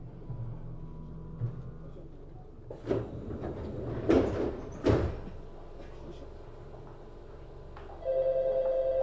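Inside a Tokyu 7700 series commuter train: a low rumble with a few knocks and a rushing burst about halfway through. Near the end a loud, steady electronic tone starts abruptly and holds.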